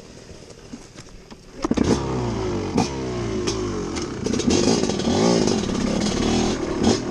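A TM Racing MX250 two-stroke dirt bike engine catches about one and a half seconds in, after quiet coasting with light rattling, then runs, revving up and down repeatedly as the bike rides off, with scattered clattering knocks from the bike over rough ground.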